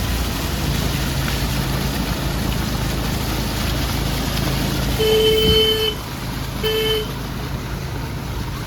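Steady engine rumble of road traffic. About five seconds in, a vehicle horn honks twice, a long honk and then a short one.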